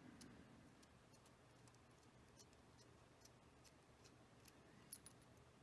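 Near silence with a few faint, small metallic clicks as a hand tool works on a Mul-T-Lock Jr. lock cylinder, the sharpest click near the end.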